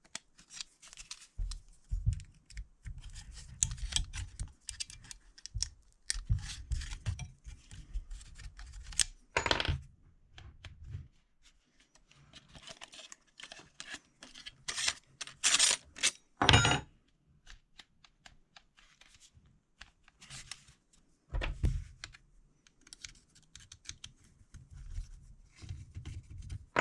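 Handling noise from adjusting a Parkside cordless jigsaw's base plate for a 45-degree bevel: an Allen key loosening the shoe bolts, then the metal plate being twisted and set. It comes as irregular clicks, clinks, scrapes and low knocks, with a few louder clatters.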